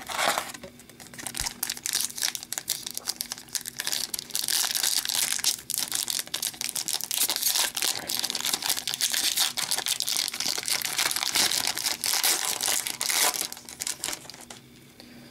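Foil wrapper of an Upper Deck hockey card pack crinkling as it is torn open and handled, a long run of dense crackling that stops near the end.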